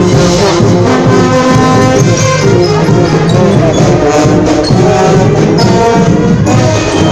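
A brass band playing loud, continuous music with held notes, as at a carnival street parade.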